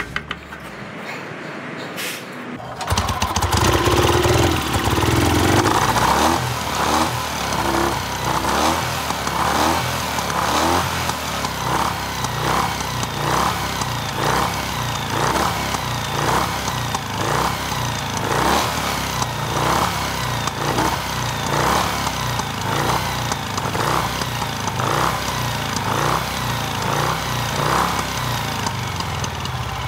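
Norton Dominator parallel-twin motorcycle engine catching about three seconds in, then running loudly with a regular pulsing beat about one and a half times a second.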